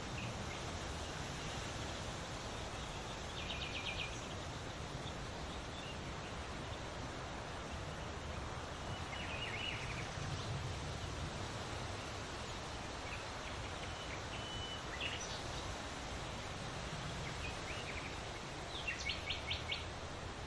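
Wind rustling leaves as a steady hiss, with small songbirds chirping now and then. Two quick trills of rapidly repeated high notes stand out, one a few seconds in and a louder one near the end.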